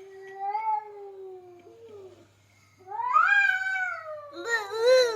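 A cat caterwauling in long, drawn-out yowls: a low one over the first two seconds, then a louder one rising in pitch about three seconds in and wavering near the end. This is the yowling of a cat squaring up for a fight.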